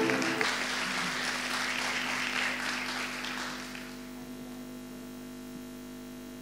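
Audience applause dying away over the first few seconds, leaving a steady electrical hum from the sound system.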